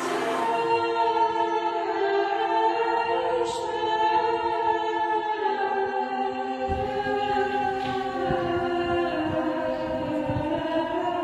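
A monastic nuns' choir singing a slow, held chant. About two-thirds of the way in, irregular low knocks begin underneath the singing.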